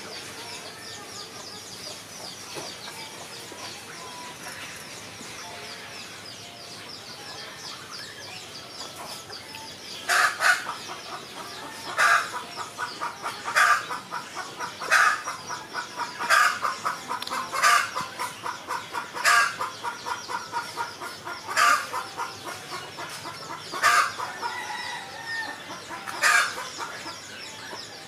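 Faint small-bird chirping, then about ten seconds in a chicken starts cackling: a long run of quick clucks, each burst rising to a loud accented note roughly every one and a half to two seconds.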